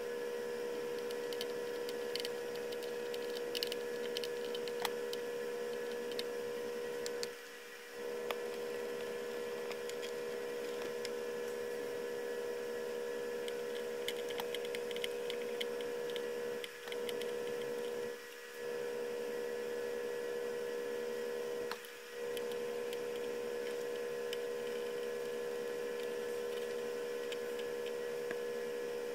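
Steady mid-pitched electrical hum from the repair bench. It cuts out briefly four times, and faint small ticks and crackles come from soldering on a circuit board.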